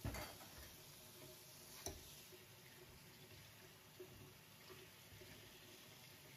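Faint stream of tap water running onto boiled wheat grains in a stainless steel mesh colander in a sink, rinsing off the starch. There is a short knock at the start and another about two seconds in.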